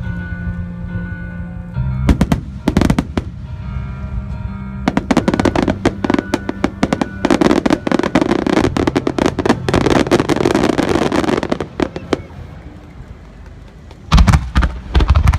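Fireworks finale: shells bursting and crackling over music. The crackling starts about two seconds in and thickens into a dense barrage, eases off, then gives way to a few loud bangs near the end.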